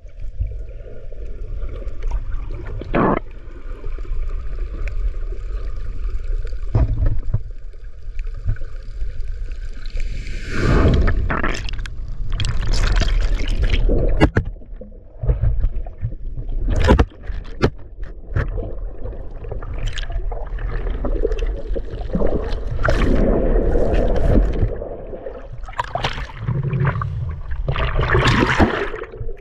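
Shallow ocean water heard muffled through an underwater camera: a steady low rumble of moving water. From about ten seconds in, many sudden splashes and sloshes come as the camera moves near and through the surface.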